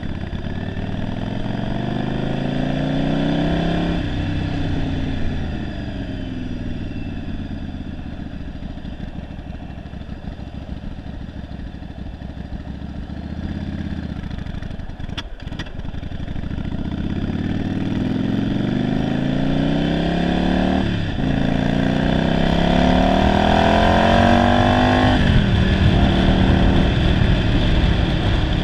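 1991 Yamaha Virago 750's V-twin engine under way, heard from the rider's seat; it has a single-carburettor conversion and runs poorly, by the owner's account. The revs climb, then fall away slowly for several seconds, then climb again through two gear changes, the pitch dropping at each shift near the end.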